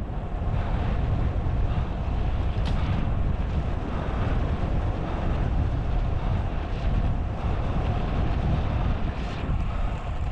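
Wind buffeting the microphone of a camera on a moving road bike, over a steady low rumble of riding at speed. A brief click about three seconds in.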